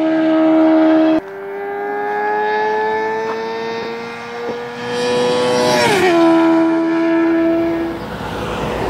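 Suzuki GSX-R600 K3 sport bike with a MIVV exhaust passing at high revs. Its inline-four gives a steady high tone that creeps up in pitch as it approaches and drops sharply as it goes by about six seconds in, then fades away near the end. The sound jumps abruptly about a second in, where a new pass is spliced on.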